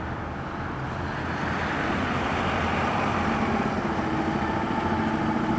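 Fire engine's diesel engine running and growing louder as the rig pulls out of the station bay, with a steady held tone joining about four seconds in.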